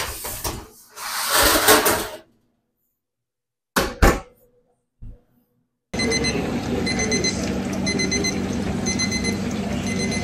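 Metal sheet pan and rack clattering as they slide into a combi oven, a knock about four seconds in, then a ThermoPro probe thermometer beeping in short groups about once a second over the steady whir of the oven's convection fan: its alarm signalling that the brisket has reached the 195°F target temperature.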